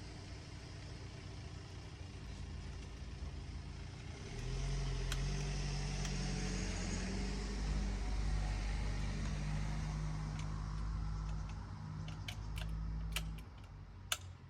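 A low motor hum starts suddenly about four seconds in and runs steadily for about nine seconds before cutting off, followed by a few sharp metallic clicks.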